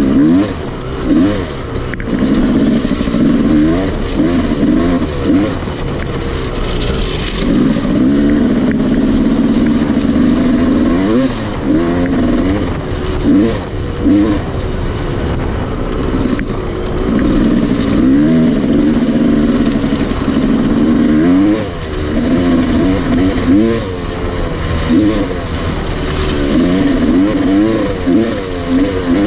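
Dirt bike engine being ridden, its pitch rising and falling again and again as the throttle is opened and closed.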